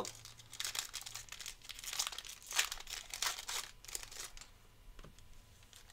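Wrapper of a Panini Mosaic football card pack being torn open and crinkled by hand, a run of irregular crackles that thins out near the end.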